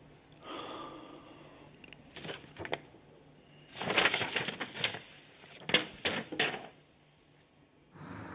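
A sheet of paper rustling and being crumpled in several irregular bursts, loudest in the middle. Just before the end it gives way to a steady distant traffic hum.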